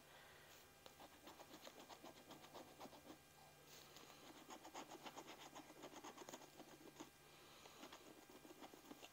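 Faint, rapid scratching as the coating is rubbed off a scratch-off lottery ticket, in quick repeated strokes with a brief pause about seven seconds in.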